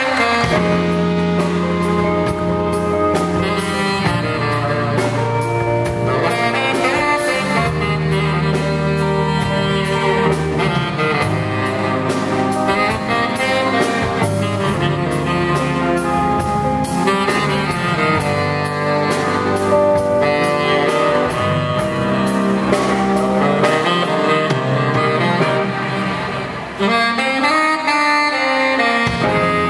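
Tenor saxophone playing a solo in a blues/jazz style, long held notes over a live backing band.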